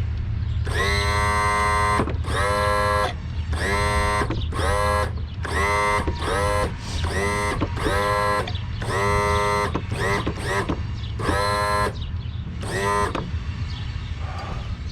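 The 12-volt electric motor of a Mercury outboard's power trim pump, switched on and off about a dozen times in short bursts of under a second: each whine rises in pitch as the motor spins up, then cuts off. A steady low hum runs underneath. The pump is cycling trim fluid, which foams as it gets past a leaking ram seal.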